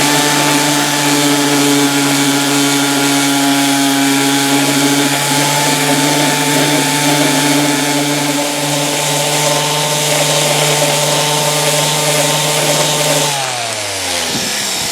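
Small electric sander running steadily against a glued, cracked wooden corner, a motor hum with sanding hiss over it. It spins down and stops about 13 seconds in.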